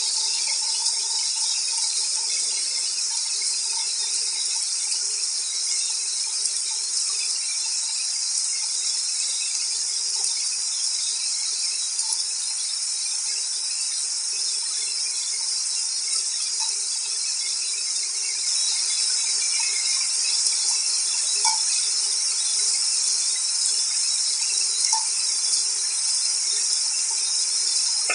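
Steady rain falling, a dense even hiss that does not change, with a few faint ticks of drops.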